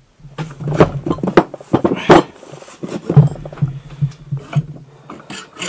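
Metal clunks and knocks as a seized two-stroke moped engine's aluminium cylinder is worked off the piston and the crankcase is moved about on the bench, with a low rubbing rumble between the knocks.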